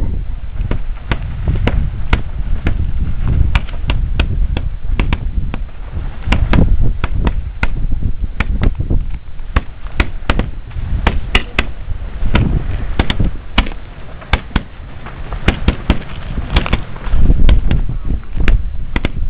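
Lava cascade crackling and popping: irregular sharp cracks, several a second, over a low rumble of wind on the microphone.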